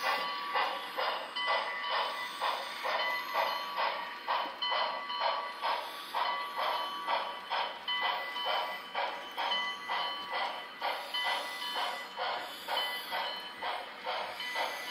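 Model steam locomotive's sound decoder chuffing at an even, steady beat of a little under three chuffs a second, thin and without any low end as it comes from a small speaker, while the empty coal train rolls by.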